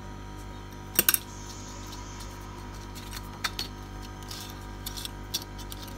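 Sharp clicks and taps of hard tablet parts being handled as the Huawei MediaPad M5's display panel is lifted from its frame: a quick cluster of knocks about a second in, then a few lighter ticks, over a steady low hum.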